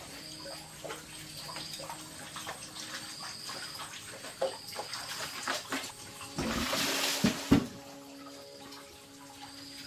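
Water running and splashing, with scattered small clicks and knocks; a louder rush of water about six and a half seconds in, ending with two sharp knocks.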